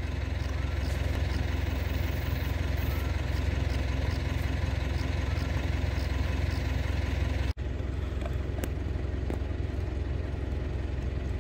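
A steady low mechanical hum, like an idling engine, drones evenly throughout. It cuts out for an instant about seven and a half seconds in, and a few faint clicks follow.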